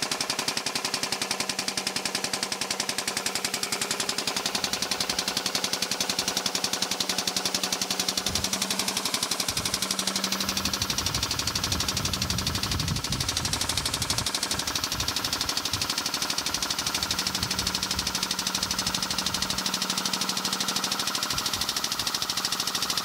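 Air-over-hydraulic jack's air-driven pump chattering rapidly and evenly as it presses a cast iron valve sleeve out of a steam stoker engine's cylinder head.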